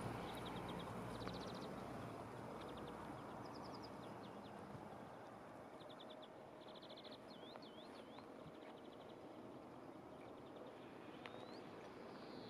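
Small birds chirping and trilling in short, quick runs of high notes, over a faint steady outdoor hiss. A low rumble fades away over the first few seconds.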